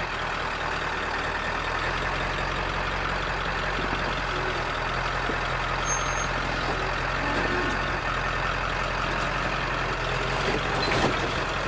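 Heavy diesel pickup engine running steadily at low speed while the loaded truck camper crawls over boulders and rock, with a brief knock near the end.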